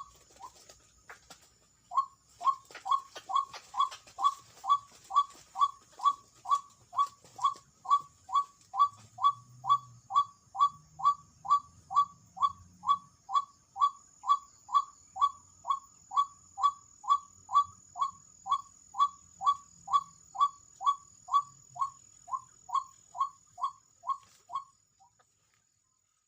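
White-breasted waterhen calls: short notes repeated very evenly, about two a second, pausing briefly about a second in and stopping near the end.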